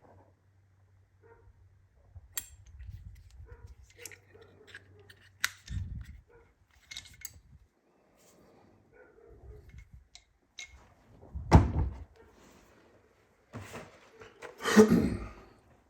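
Tool parts and packaging being handled: scattered light clicks and taps, with two louder thumps, one a little past the middle and one near the end.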